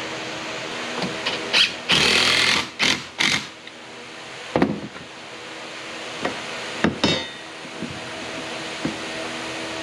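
Cordless drill driving screws into a wooden bracket in short bursts, the longest under a second, followed by a couple of sharp knocks of wood and tools being handled. A steady hum runs underneath.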